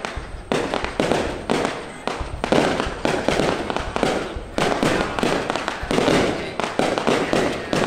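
Aerial firework shells launching and bursting in quick succession, about two bangs a second, each sudden bang fading away before the next.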